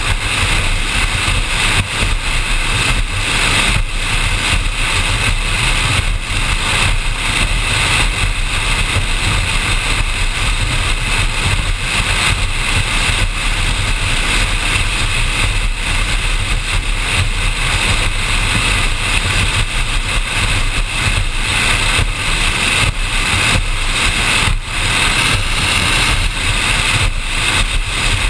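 Active Thunder performance powerboat running at speed on open water: a loud, steady drone of its engines mixed with rushing wind on the deck-mounted microphone.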